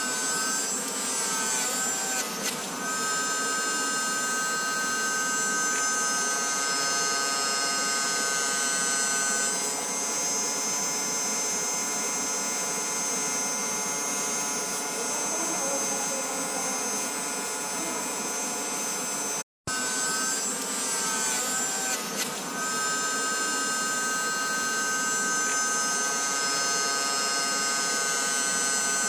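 BioLite CampStove 2's built-in plastic fan running with an abnormal grinding noise over a steady whine, the sign of a failing fan whose blades are breaking off. The whine wavers as it starts, then holds steady. It breaks off briefly about two-thirds in, then the same thing starts again.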